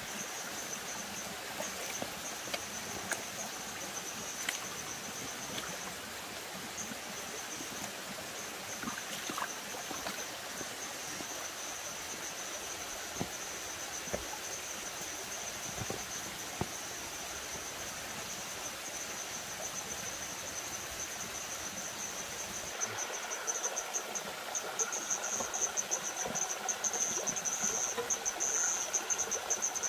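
Night insects give a steady, high-pitched chirring over the running water of a rocky stream, with scattered faint clicks. About 23 seconds in, the insect chorus grows louder and pulses, and a second, lower-pitched steady call joins it.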